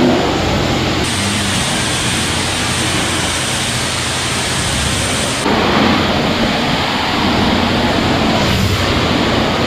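Self-serve car wash high-pressure wand spraying a steady hissing jet of water onto a car, rinsing off soap foam. The hiss turns sharper from about a second in until a little past the halfway point.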